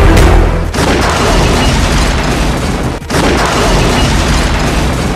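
Explosion sounds: loud, dense blast noise that runs on without a break in level, starting afresh suddenly about a second in and again about three seconds in.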